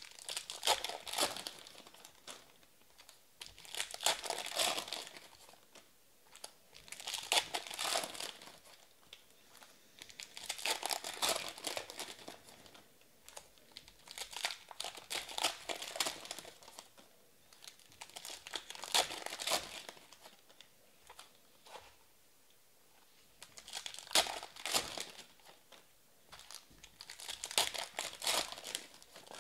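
Foil trading-card pack wrappers being torn open and crinkled by hand, one pack after another: about eight bursts of crackling a few seconds apart, with short quiet gaps between.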